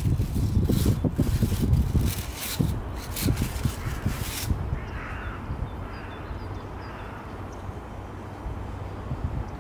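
Stiff bristles of a wall-mounted scratching brush rasping against a muskox's head and thick coat as it rubs, in irregular scratchy strokes with dull low thumps. The rubbing stops abruptly about halfway through.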